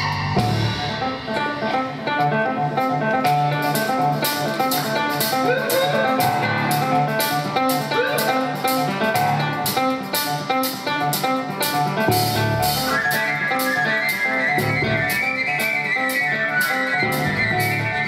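Live instrumental music from grand piano, drum kit and a wind instrument: the piano plays a repeating figure over a steady cymbal beat, and a high held wind line enters about two-thirds of the way through.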